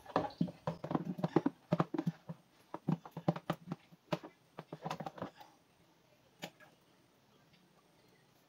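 Quick irregular clicks and knocks of plastic containers against a plastic basin as dishwashing liquid is scooped by hand, with light sloshing, over about the first five seconds, then one last click.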